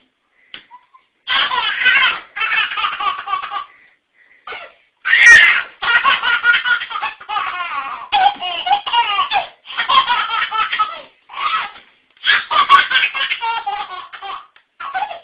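Baby laughing hard in repeated bursts, starting about a second in, with brief pauses between fits of laughter.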